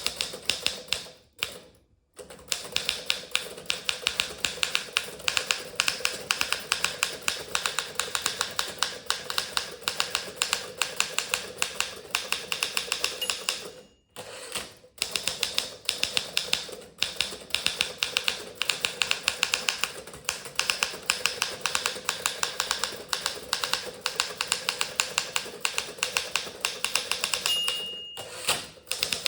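Remington Senior Writer (Torpedo 17a) manual portable typewriter being typed on fast and steadily, a dense run of key and typebar strikes with two short breaks. Near the end a brief ring of the margin bell marks the end of a line.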